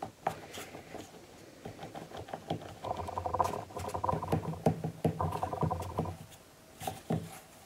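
A hand rolling a coil of air-drying clay back and forth on the work surface: soft rubbing strokes with light knocks and clicks, busiest in the middle few seconds.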